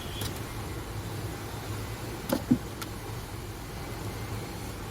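A few short clicks and knocks as wire connectors are pulled off an amplifier circuit board: one early, then three close together about two and a half seconds in. A steady low hum runs underneath.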